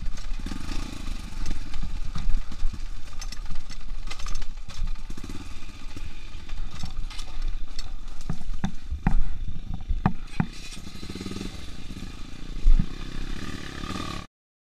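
Yamaha XTZ 125 single-cylinder four-stroke dirt bike, fitted with an aftermarket Protork exhaust, running on a rough dirt trail, with knocks and rattles from the bike jolting over bumps. The sound cuts off abruptly near the end.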